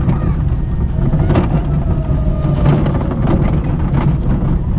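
Vekoma junior roller coaster train running along its steel track: the wheels rumble and clatter over the rail, with heavy wind noise on the front-mounted microphone and a thin, drawn-out tone now and then.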